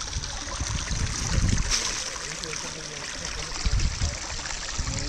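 Running stream water, a steady rush, with a few low bumps on the microphone.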